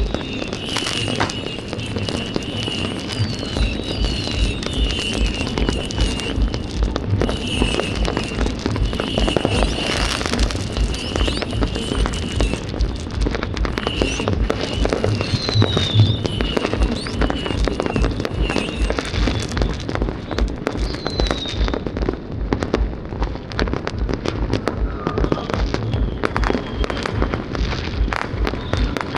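Many fireworks going off at once: a continuous rapid crackle of bangs, with short whistles gliding down in pitch now and then. Underneath runs music with a steady bass beat.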